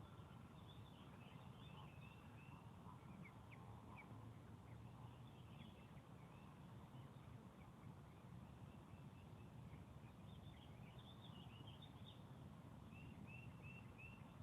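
Faint outdoor ambience: scattered small bird chirps and calls, with a run of four alike near the end, over a low steady rumble.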